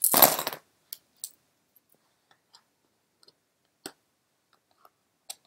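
A set of runes cast onto the table: a short clatter of the pieces tumbling together, then a few light, separate clicks as single runes are moved or turned over.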